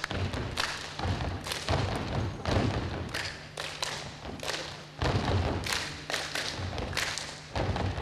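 A dance group stomping heavily on a wooden stage floor, with sharp claps mixed in and music underneath.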